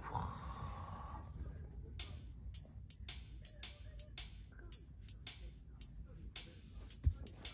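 Cat's claws scratching at the torn fabric lining under a sofa: short scratchy strokes at uneven intervals, two or three a second, starting about two seconds in. Background music plays throughout.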